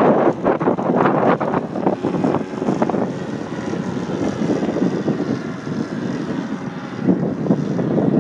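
Gusty wind buffeting the microphone, strongest in the first three seconds, over the steady drone of a radio-controlled Extra 300 aerobatic model plane's motor and propeller flying overhead.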